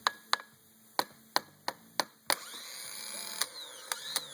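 A failing Honda Odyssey starter on the bench: its solenoid clicks sharply over and over, and about two seconds in the motor begins to whir while the clicking goes on. The starter has failed internally.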